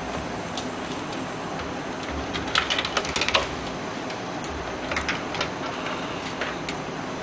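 Small clicks and rattles of hands handling cables and parts inside a computer case: a quick cluster about two and a half to three and a half seconds in, and a few more around five seconds. A steady hiss of background noise lies under them.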